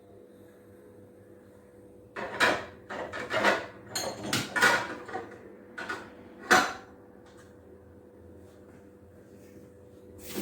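Dishes and dishwasher racks clattering as they are handled and loaded, a string of knocks and clinks starting about two seconds in and stopping about seven seconds in.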